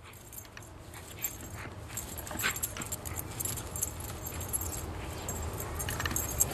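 A dog chasing and tugging the lure of a flirt pole, making short whining sounds, with a metal collar jingling over a steady low rumble.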